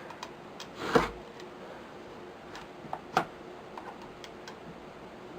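A few light clicks and knocks of small metal rifle parts being handled and fitted together during reassembly, the loudest about a second in and another just past three seconds.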